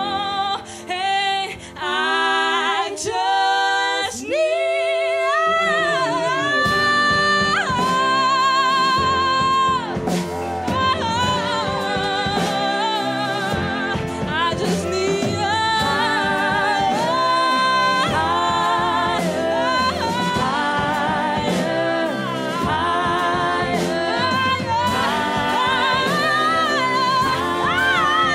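A live jazz band with three women singing in close harmony, with vibrato. For the first few seconds the voices sing short phrases with little under them, then hold long notes. From about ten seconds in, the full band joins under the voices: upright bass, saxophones, trumpet and piano.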